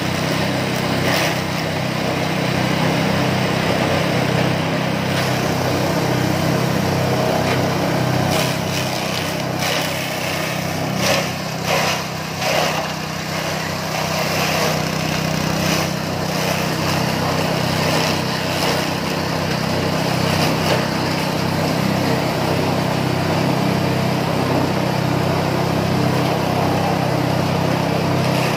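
Small engine driving a grass chopper (chaff cutter), running steadily while its blades cut grass stalks being fed into it. A few brief louder bursts in the middle.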